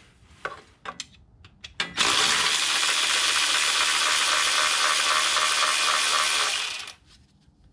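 Power ratchet running for about five seconds, spinning out one of the long 8 mm bolts that hold the Ford 5R55S transmission filter. A few light clicks of the tool on the bolt come first.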